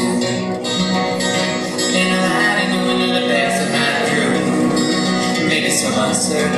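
Acoustic string band playing live: a strummed acoustic guitar with other plucked strings, steady throughout.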